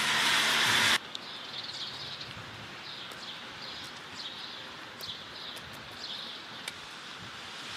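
Outdoor ambience with small birds chirping repeatedly. During about the first second a loud rushing noise covers everything, then cuts off abruptly.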